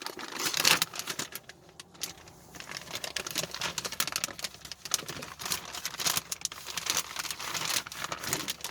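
Thin plastic packaging crinkling and rustling as face shields are handled and pulled from their bag: a dense run of small crackles, loudest about half a second in.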